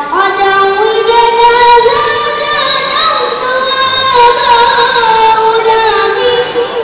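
A young girl reciting the Qur'an in melodic chant, amplified through a microphone and loudspeaker: one long phrase of held notes with wavering, ornamented turns of pitch.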